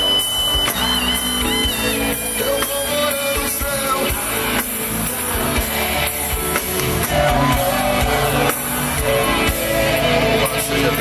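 Live gospel band playing amplified in a large hall, with electric guitars and bass, while a man sings into a handheld microphone.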